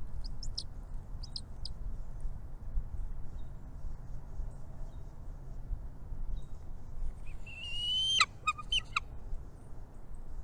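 Small birds at a nest calling: a few short, high chirps in the first two seconds, then about seven seconds in a longer rising call followed by a quick run of sharp notes. A steady low rumble lies underneath.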